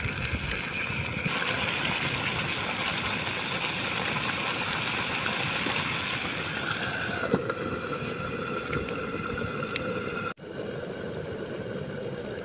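Chicken curry cooking in a frying pan over an open wood fire: a steady sizzling hiss with a few sharp crackles from the burning sticks. The sound cuts out abruptly about ten seconds in and resumes straight away.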